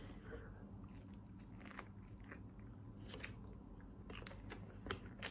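Faint chewing of a mouthful of nori-wrapped sushi roll, with a few soft clicks scattered through it.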